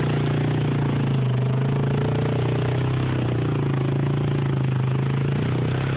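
Snorkelled Honda ATV engine running at a steady pitch while the quad wades through deep muddy water.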